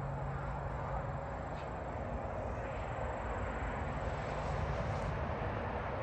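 Air-conditioning condenser unit running: a steady rushing noise over a low hum.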